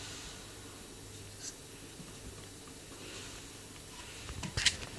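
Bengal kitten's faint low growl and breathing, with a few short sharp scuffs near the end.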